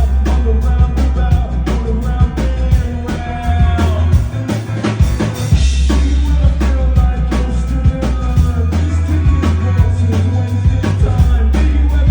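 Live band playing a rock song: drum kit keeping a steady beat under sustained bass notes, with guitar or voice lines above.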